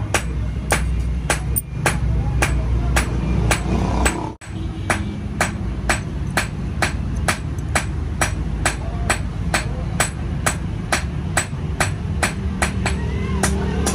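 A hammer striking metal in a steady rhythm, about three blows a second, with one brief break a little over four seconds in.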